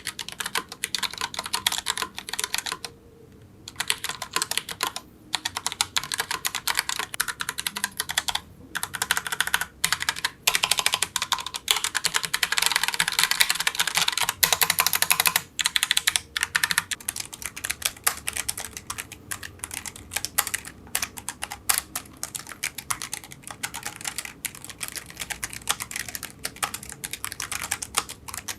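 Typing on a Logitech POP Keys mechanical keyboard: a steady stream of key clacks, with a few short pauses and a faster, louder run near the middle.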